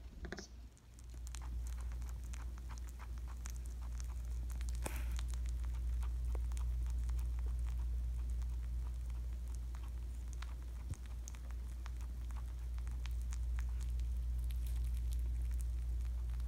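Rabbit chewing soft banana close to the microphone: many small, irregular clicks and smacks over a steady low hum.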